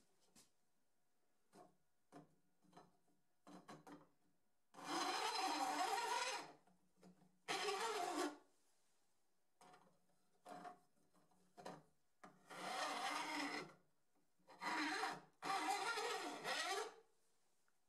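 Flat file drawn lengthwise along the tops of a hand saw's teeth held in a saw vise, jointing the teeth level. A few short scrapes and taps in the first few seconds, then about five long rasping strokes.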